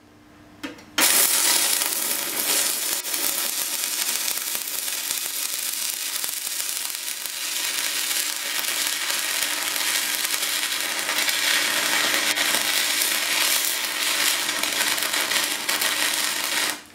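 Stick (MMA) welding arc at 200 amps: it strikes about a second in, then crackles and hisses steadily as the electrode burns down, and cuts off just before the end. This is a full-power load test of a welder's transformer-and-rectifier power supply.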